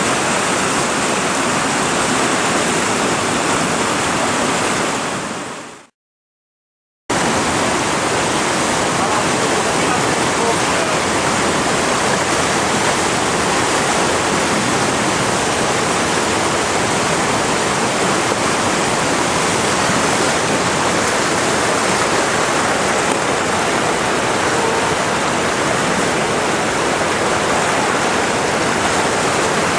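Steady rush of fast-flowing water. It fades out about five seconds in, drops to a second of silence, then comes back suddenly at full level.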